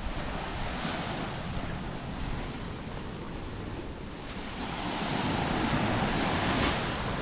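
Small sea waves breaking and washing up a sandy beach, the surf swelling about a second in and again, louder, over the last few seconds, with wind rumbling on the microphone.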